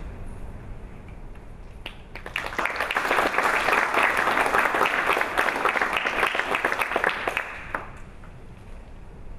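A small audience applauding, starting about two seconds in and dying away after about six seconds.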